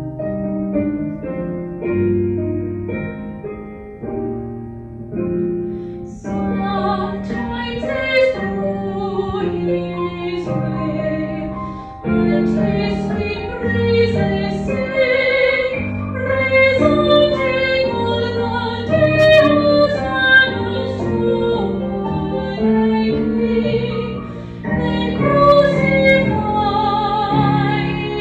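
A woman singing a hymn solo with piano accompaniment. The piano plays alone at first, and the voice comes in about six seconds in, singing with vibrato.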